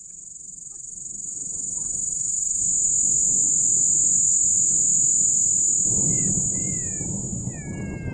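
A steady, high-pitched insect chirring that swells over the first few seconds and eases off toward the end. Near the end come a few short, high calls that fall in pitch.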